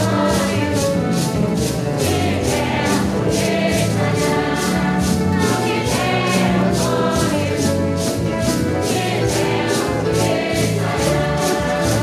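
A large congregation of men and women singing a hymn together. Maracas are shaken along with the singing in a steady beat of about three shakes a second.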